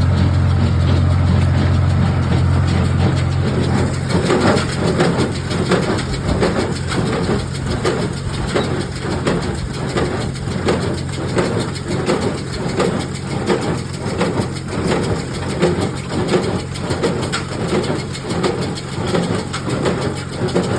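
Farmall 450 tractor engine running steadily, then from about four seconds in the Case IH square baler working in a steady rhythm of about one and a half strokes a second as its plunger packs alfalfa into the bale chamber.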